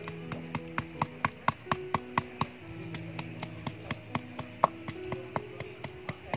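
Stone pestle pounding coriander and cumin seeds with burnt coconut in a stone mortar (lesung batu): sharp, regular knocks about four or five a second. Soft background music with held notes plays underneath.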